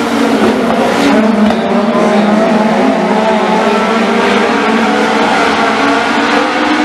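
A pack of Legends race cars at full throttle, their Yamaha motorcycle four-cylinder engines running at high revs. Several engine notes blend into one loud, steady drone that wavers slightly as the cars go through the turn.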